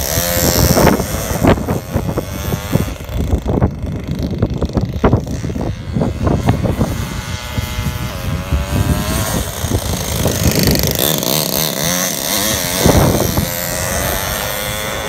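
Toyan four-stroke model engine in an RC truck running and revving as the truck drives off, its pitch rising and falling with the throttle, over irregular low thumps.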